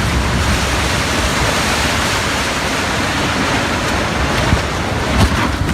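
A multi-storey building collapsing prematurely: a loud, steady rushing roar of falling concrete and debris, with a couple of faint knocks near the end.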